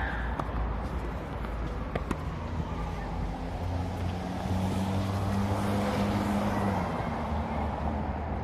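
A motor vehicle's engine rumbles past, growing louder in the middle and then fading, over steady outdoor background noise. A couple of faint knocks can be heard.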